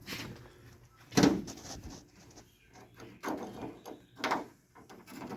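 Clunks and rattles of a truck door lock mechanism being worked free of the door after its retaining clip is pulled, with the loudest clunk about a second in and two more a couple of seconds later.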